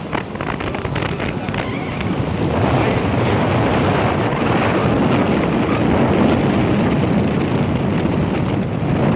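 Wind rushing over the microphone while riding a Bajaj Discover motorcycle, its single-cylinder engine running on LPG underneath. It grows louder about two and a half seconds in.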